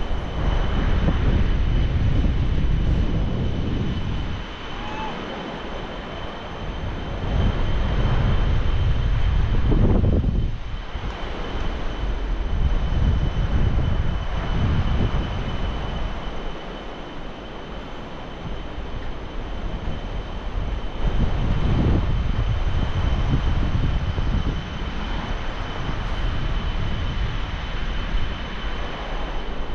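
Wind buffeting the microphone of a camera on a swinging bungee jumper, a rumbling rush that swells and fades every few seconds as he swings on the cord.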